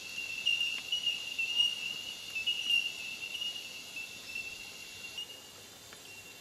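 Insect trilling: one steady high-pitched note, wavering slightly, that stops about five seconds in.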